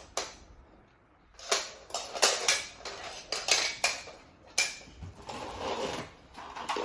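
Small hard toy parts clattering and clicking while being handled and fitted together. A run of short knocks and rattles starts about a second and a half in.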